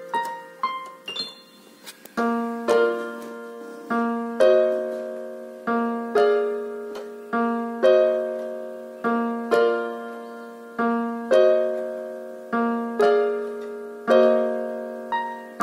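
Background piano music: struck chords that ring and fade, repeating at an even, unhurried pace, with a softer stretch about a second in.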